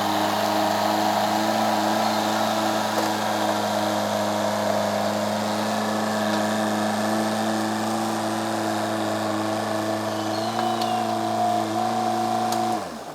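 An engine running at a steady speed, its pitch stepping up slightly about ten seconds in. Near the end it is shut off and winds down quickly.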